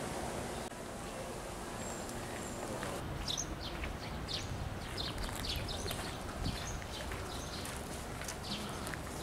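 Outdoor ambience of a low steady background rumble, with small birds chirping in many quick, short, high calls from about three seconds in.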